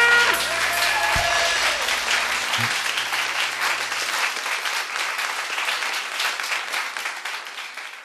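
Applause: dense clapping that slowly fades out, while the last held chord of the song dies away in the first second or two.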